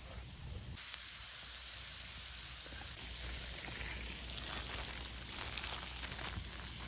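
Food sizzling on a hot iron griddle over a wood fire, a steady frying hiss that starts abruptly about a second in, with small crackles and pops.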